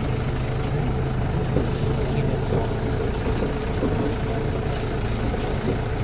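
Engine of the vehicle towing an open farm-tour trailer, running steadily with a low hum as the ride moves along.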